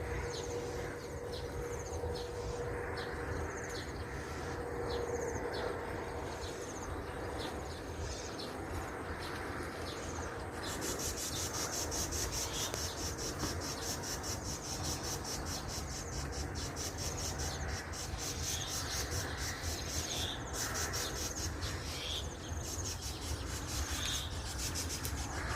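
Outdoor insect and bird chorus: short high chirps repeat for the first ten seconds, then a dense, fast-pulsing insect buzz sets in and runs on, over a steady low rumble.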